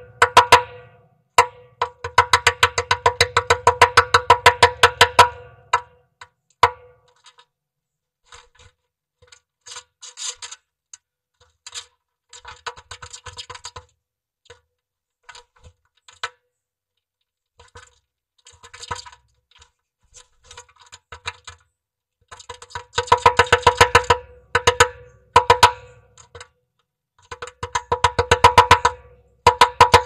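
A woodpecker hammering at a wooden nest box's entrance hole with its bill: fast runs of hollow-sounding knocks. The runs come about a second in and again from about 23 seconds in, with scattered softer taps between them.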